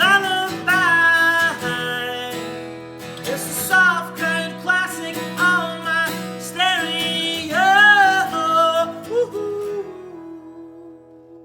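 Closing bars of an acoustic indie-folk song: acoustic guitar chords under a high melody line of gliding held notes, dying away near the end as the last chord rings out.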